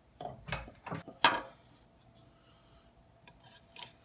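Handling sounds as a silicone pot holder and a wooden bowl are fitted by hand over a wooden jam chuck on a lathe that is not running: a few short rubbing, scraping touches in the first second and a half, then only faint light taps.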